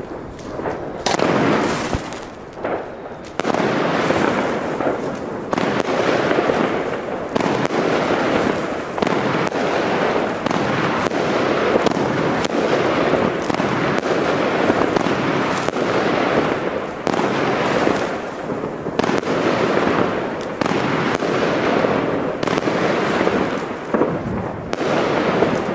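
Dense, continuous crackling made of many rapid pops. It is patchy for the first few seconds, then near-constant and loud.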